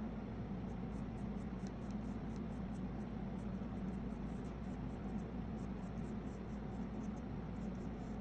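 Flat paintbrush dabbing and brushing thick paint onto paper in short, irregular strokes, over a steady low hum.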